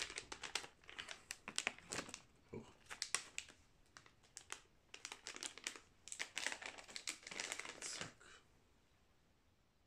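Plastic gummy-candy bag crinkling in quick, uneven crackles as it is handled and opened, stopping about eight seconds in.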